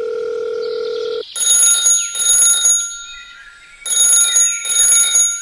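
A steady telephone tone for about the first second, then a telephone ringing in two double rings.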